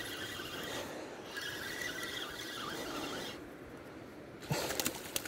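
Spinning reel being cranked to retrieve a lure: a faint gritty whirr and squeak of the reel turning and line winding on, with louder scraping and clicking near the end.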